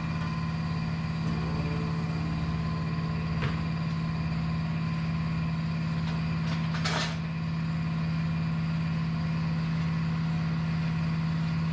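A machine running with a steady, loud hum on one low pitch, with a small click about three and a half seconds in and a short hiss about seven seconds in.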